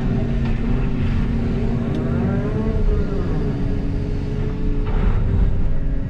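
Volvo EC300EL hybrid excavator's engine and hydraulics running under digging load, heard from inside the cab, the machine's tone shifting in pitch about halfway through as the bucket of rock is dumped and the boom swings back.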